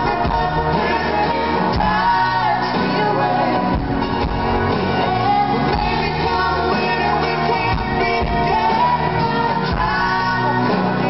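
Live country-pop band playing a song, with banjo and drums under a woman's lead vocal, recorded from the audience in a large hall.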